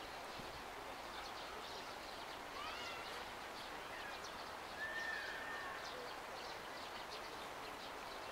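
Steady outdoor ambience of distant city noise, a constant hiss, with a few short whistled bird calls; one call holds a note and then slides down about five seconds in.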